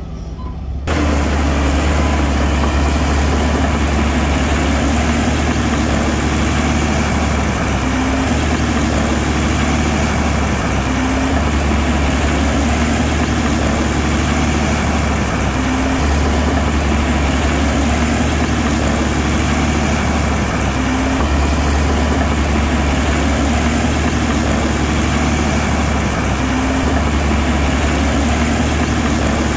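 Heavy diesel engine of construction machinery running steadily under a low, deep drone, starting abruptly about a second in.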